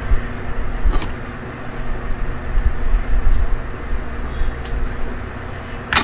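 Steady low rumble and hum of workshop room noise, with a few faint light clicks. Near the end comes one loud sharp clatter as a hand handles the tools on the bench.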